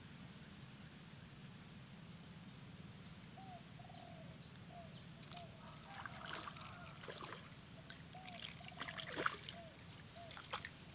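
A hooked climbing perch thrashing and splashing at the surface of swamp water as it is pulled in: irregular splashes begin about halfway through and grow stronger toward the end.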